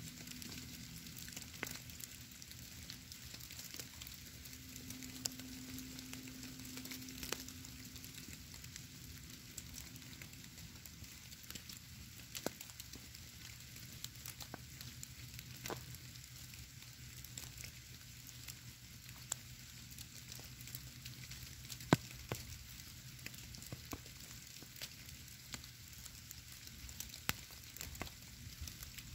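Falling snow in a woodlot: a soft, steady hiss with many tiny scattered ticks as flakes land on the stone and ground, and one sharper tick about 22 seconds in.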